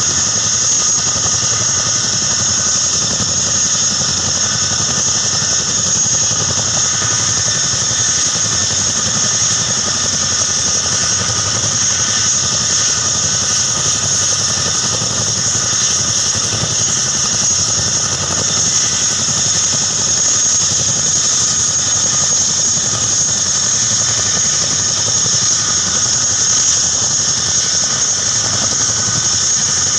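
Boeing CH-47 Chinook tandem-rotor helicopter running on the ground with its rotors turning: its twin turbine engines give a steady high whine over the constant rotor and engine noise.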